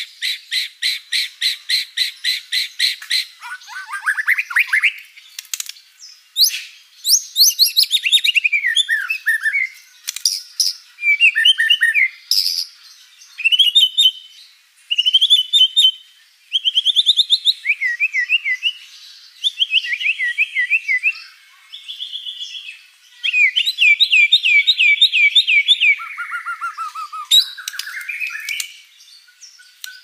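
White-rumped shama (murai batu) singing a long, varied song. It opens with a fast run of repeated high notes, about five a second, for the first three seconds, then goes through a string of different whistled phrases, rising and falling sweeps and quick trills, with many fill-in phrases in its repertoire.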